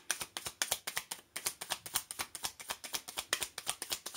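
Deck of divination cards being shuffled by hand: a rapid, even run of soft card clicks, about ten a second.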